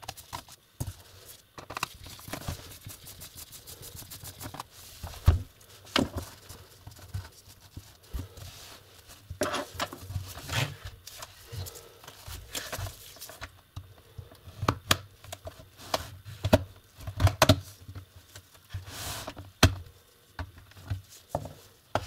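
Plastic bottom case of an Acer Aspire laptop being pried open: irregular sharp clicks and snaps as the case clips let go, mixed with knocks from handling the laptop.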